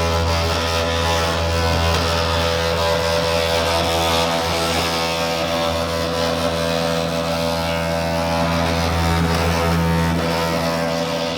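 RockMow S108 robotic lawn mower's spinning cutting disc giving a steady, droning hum made of many held tones. This is the abnormal noise the owner complains of with both the standard disc and the PreciEdge disc.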